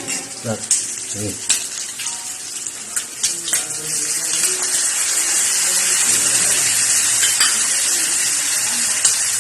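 Chicken gizzards sizzling in a hot pan, the hiss growing louder about four seconds in and then holding steady, with a few sharp clicks of a utensil against the pan in the first seconds.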